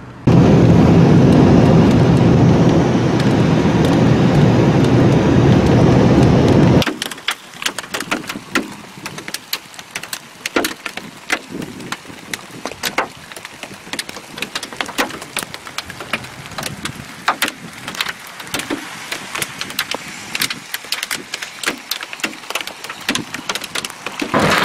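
Thunderstorm sound. A loud, even roar runs for the first seven seconds or so and is cut off abruptly. Then comes a run of scattered sharp ticks from storm drops striking a hard surface close to the microphone, over a light hiss of rain.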